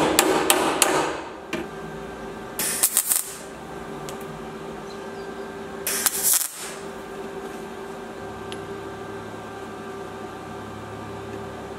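Ball-peen hammer tapping a welded-in steel repair panel in a quick run of strikes that ends about a second in. Then two short bursts of MIG tack welding, about three seconds apart.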